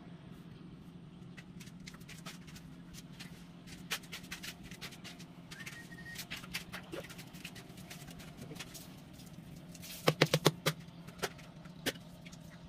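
A 40 by 40 floor tile being handled and set into fresh mortar: scattered small clicks and scrapes, then about ten seconds in a quick run of about six knocks as the tile is tapped down into its bed. A steady low hum runs underneath.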